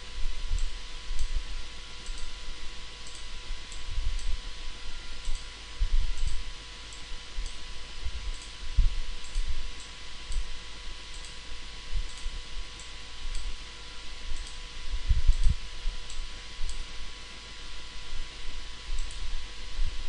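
Computer mouse clicks scattered through, over a steady hiss and a faint electrical hum. A few dull low thumps come and go, the loudest about fifteen seconds in.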